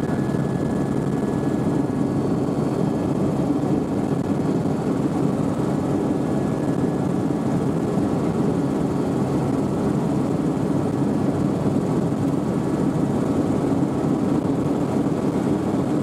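Helicopter engine and rotor noise heard from inside the cabin in flight, a steady drone.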